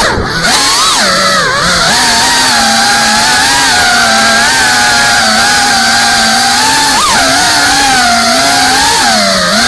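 FPV quadcopter's brushless motors whining loudly, the pitch rising and falling with the throttle. Loudness dips briefly just after the start, and the pitch jumps in quick throttle punches about seven seconds in and near the end.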